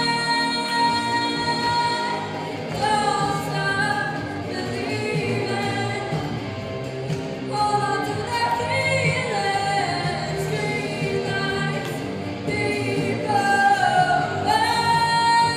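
Choir singing, with long held notes and sliding changes of pitch between them.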